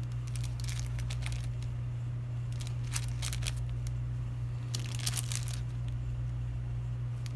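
Clear plastic bags crinkling as they are handled and shuffled, in short spells, busiest around three and five seconds in, over a steady low hum.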